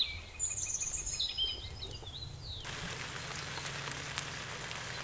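Birds chirping in the first half. A little past halfway a steady hiss with faint crackles takes over: foil-wrapped apples cooking on a kettle grill over charcoal.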